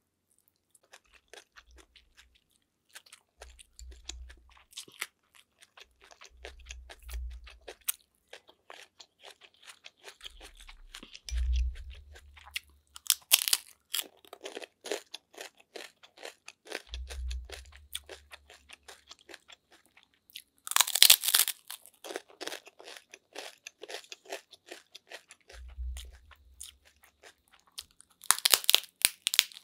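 Close-miked eating: moist chewing of sautéed fern leaves with many small mouth clicks, broken by loud crunching bites of chicharon (fried pork rinds), about halfway through, again about two-thirds through, and near the end.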